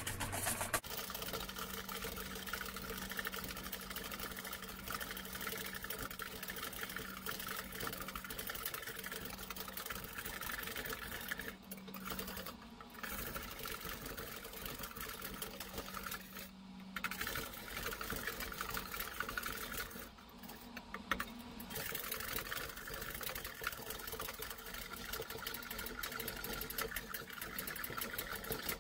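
Wire balloon whisk beating egg whites by hand in a stainless steel bowl: a fast, steady rattle of the wires against the metal, broken by a few brief pauses, as the whites are whipped into meringue.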